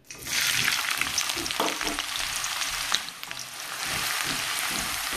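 Chopped onions dropped into hot palm oil in a wok, sizzling at once with dense crackling as a wooden spoon stirs them.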